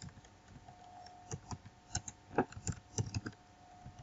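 Typing on a computer keyboard: an irregular run of key clicks, thickest through the middle, over a faint steady hum.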